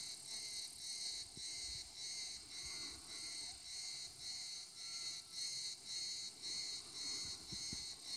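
Insects singing in a steady, high-pitched chorus that pulses about two to three times a second.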